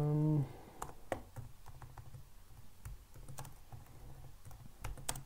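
Typing on a computer keyboard: scattered, irregular keystrokes while code is being edited, after a short hummed "mmm" right at the start.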